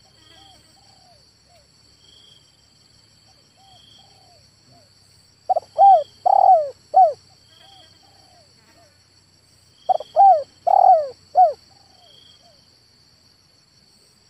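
Male spotted dove cooing: two loud phrases of four falling coo notes each, about 5.5 and 10 seconds in, with fainter coos in between.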